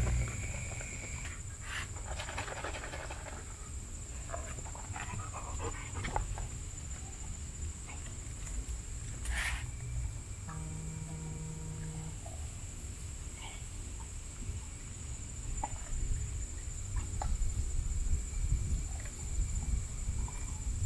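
Wind rumbling on the microphone, with scattered light clicks and knocks of metal tongs against an aluminium pot as liquid dye is stirred, and a steady high-pitched whine.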